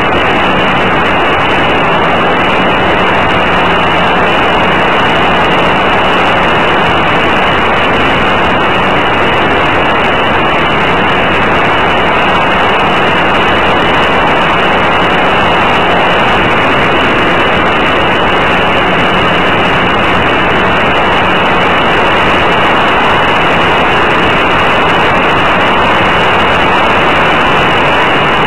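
Loud, steady rush of airflow and propeller-drive noise picked up by a camera riding on a Senior Telemaster model airplane in flight, with a faint steady hum underneath that fades in and out.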